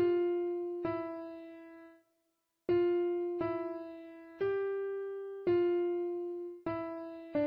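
Background music: a slow keyboard melody of single piano-like notes, struck about once a second, each ringing and fading, with a brief break about two seconds in.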